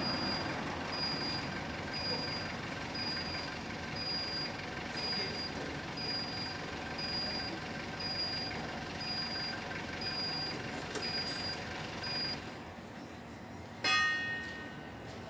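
Forklift engine running with its high-pitched warning beeper sounding at a steady rapid rate. Both stop about twelve seconds in, as if the machine is switched off. Near the end comes a single sharp metallic clang that rings briefly.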